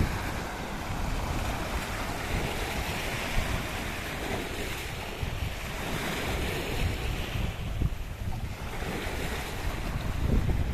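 Small waves breaking and washing over shoreline rocks, the surf swelling and ebbing a few times, with wind buffeting the microphone in a low rumble.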